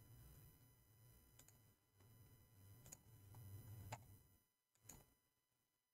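Near silence: four faint computer mouse clicks over a faint low hum that fades out near the end.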